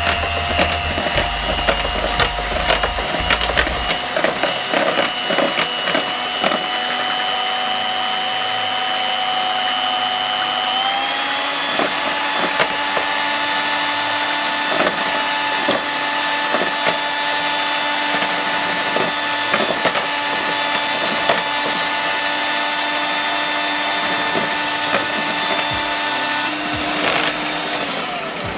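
Electric hand mixer running, its twin beaters whisking double cream and icing sugar in a plastic bowl: a steady motor whine with scattered clicks. About eleven seconds in the pitch steps up a little, and near the end the motor winds down.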